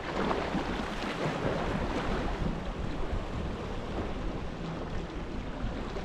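Sea waves washing in, with a surge of spray and hiss in the first couple of seconds, while wind buffets the microphone with a low fluttering rumble.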